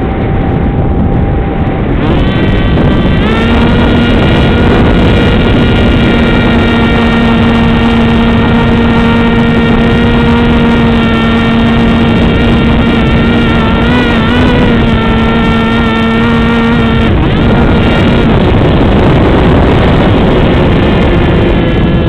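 Electric motor and pusher propeller of an Easystar foam model plane whining at a steady pitch, heard from the onboard camera with wind rushing over its microphone. The whine comes in a few seconds in with a slight rise, wavers briefly, and drops away about three-quarters of the way through, leaving the wind noise.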